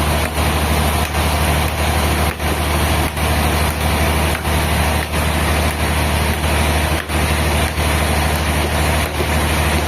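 Sawmill machinery running steadily: a deep, constant motor hum under a continuous rushing noise, with brief dips in level every second or so.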